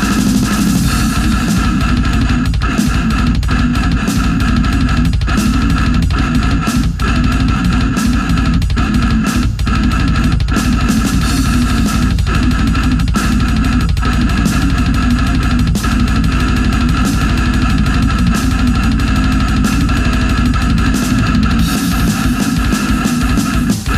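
Heavy metal band recording: electric guitar over a drum kit, loud and dense throughout.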